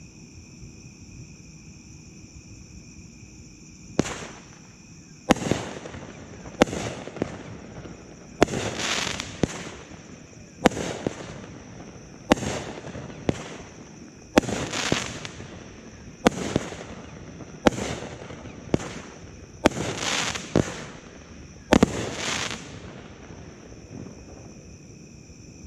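Raging Bull Kings Roar 200-gram 12-shot firework cake firing: a run of sharp shots begins about four seconds in, coming every second or so, each followed by a burst that trails off. The shots stop shortly before the end.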